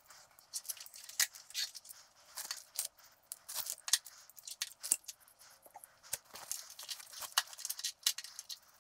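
Plastic sheeting crinkling irregularly under gloved hands, with short sharp crackles.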